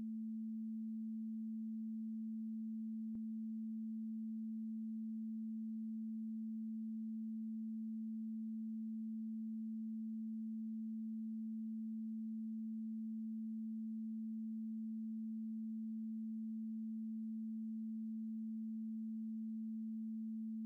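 A steady, pure, low tone held unbroken without any change in pitch or loudness, with a faint click about three seconds in.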